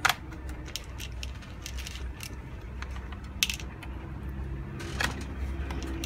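Screwdriver and small screws clicking and clinking against a plastic screw organizer box, a few sharp clicks spread out, the sharpest at the very start and others about three and a half and five seconds in, over a low steady hum.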